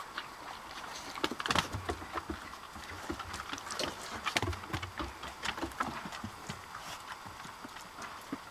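Irregular footsteps and knocks on a wooden deck, with dogs' paws and claws clicking on the boards; a few heavier thumps about a second and a half in and again around four to five seconds in.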